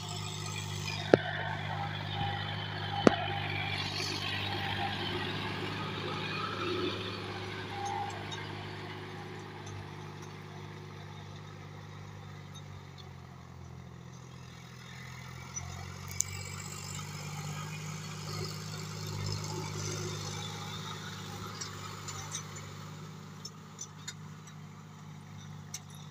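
Tractor's diesel engine running steadily while pulling a disc harrow through the soil, louder in the first several seconds and then fainter. Two sharp clicks come about one and three seconds in.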